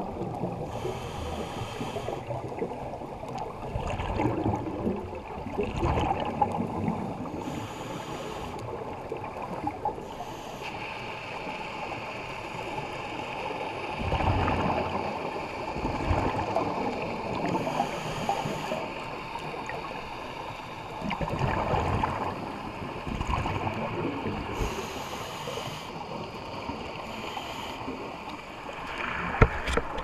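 Scuba regulator breathing underwater, heard through the camera housing: every several seconds a short hissing inhale, then a longer rumbling, bubbling exhale.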